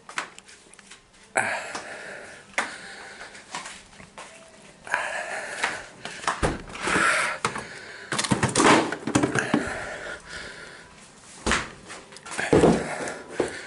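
A man breathing hard in uneven, noisy bursts against the burn of a Carolina Reaper chili he has eaten, with a few short knocks among them.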